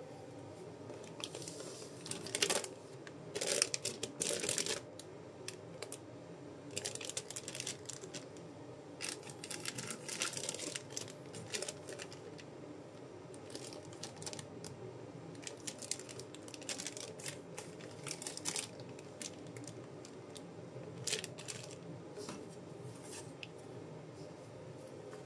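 Packaging of a Gunpla model kit being handled and unpacked: crinkling, rustling and small tearing sounds coming in repeated short bursts, with light clicks of parts and box being moved.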